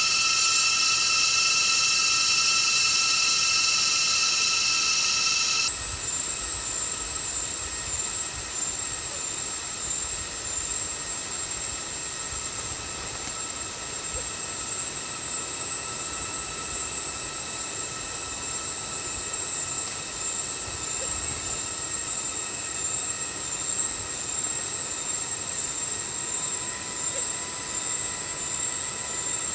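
Cicadas droning steadily in a high-pitched whine. A louder, fuller part of the chorus stops suddenly about six seconds in, leaving a thinner, higher whine.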